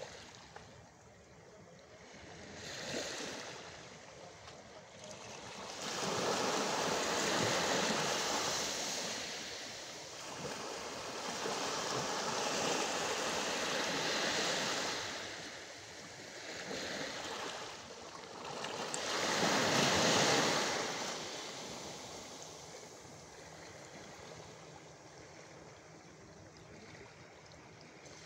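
Small sea waves breaking and washing up on the shore, in slow surges that swell and ebb over several seconds each. The loudest surge comes about twenty seconds in.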